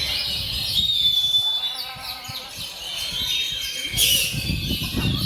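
Contest oriental magpie-robins (kacer) singing over one another in loud, varied whistles and quick chirps, with a low rumble beneath and a sharp click about four seconds in.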